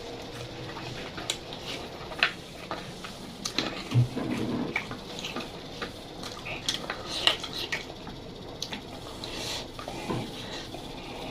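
Close-miked eating sounds: chewing and mouth clicks mixed with the clink of dishes, with a thump about four seconds in.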